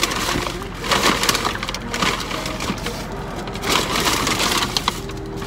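Takeout bag and food containers rustling and crinkling in several short bursts as they are rummaged through.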